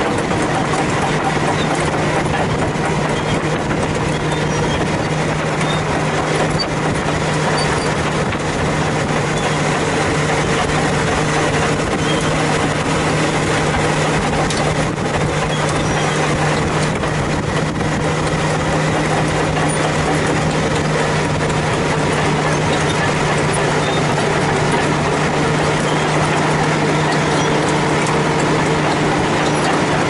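Caterpillar D10R crawler dozer's V12 diesel engine running steadily under load as it drags its rear ripper shanks through the soil, with the rattle of its steel tracks.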